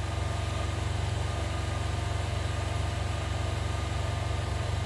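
Steady low mechanical hum with a few constant tones above it, like a motor running in the background.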